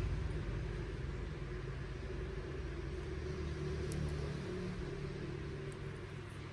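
Steady low background hum and rumble. A faint, crisp click about four seconds in, and another near six, as steel cuticle nippers snip dead skin at the edge of a big toenail.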